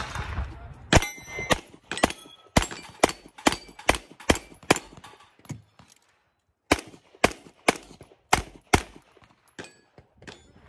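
Rapid handgun fire from a single-stack competition pistol: about sixteen shots roughly half a second apart, a run of ten then a short pause and six more. Steel plates ring and clang as they are hit.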